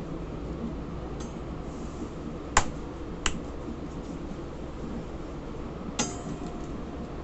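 A few sharp clicks of something hard tapping the countertop while dough balls are shaped by hand: three in all, the loudest about two and a half seconds in and the last, about six seconds in, ringing briefly. A steady low hum runs underneath.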